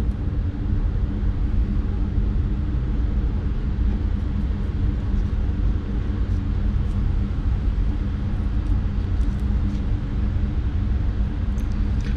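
A steady low rumble with an even low hum beneath it, with a few faint small clicks over the top.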